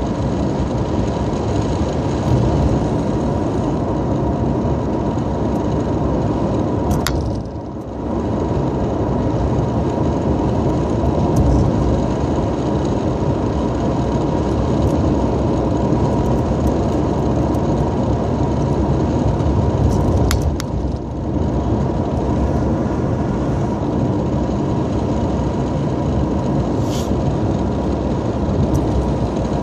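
Steady engine and road noise heard from inside a moving car's cabin. The noise briefly drops twice, about a quarter and about two-thirds of the way through.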